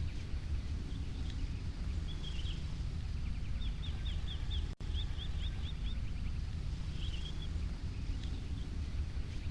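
Small birds chirping over a steady low rumble: two quick runs of short, high, falling chirps, several a second, in the middle, with a brief trill before and after. The sound drops out for a split second just before the middle.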